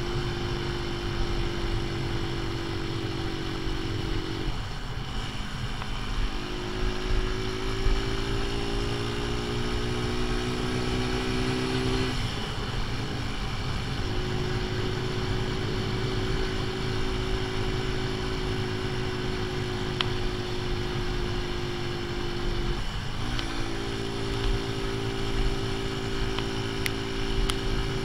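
AJS Tempest Scrambler engine running on the move with its ignition timing set half advanced, holding a steady note that breaks off briefly three times and comes back each time. Wind rumble on the microphone runs underneath.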